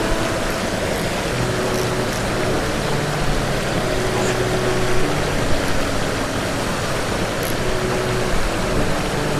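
Water rushing over a low concrete weir: a steady, even rush of white water.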